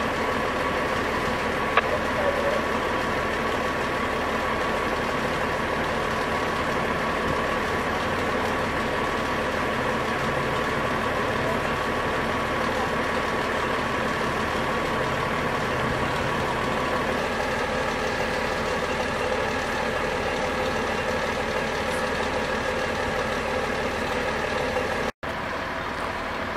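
Steady hum of idling emergency vehicles, an ambulance and fire trucks, with a faint steady whine over it. The sound breaks off briefly near the end and comes back a little quieter.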